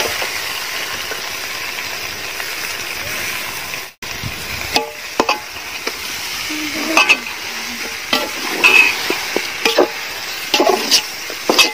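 Raw chicken pieces sizzling in hot ghee and onion masala in a large aluminium pot, a steady hiss. From about five seconds in, a metal spatula scrapes and knocks against the pot again and again as the chicken is stirred.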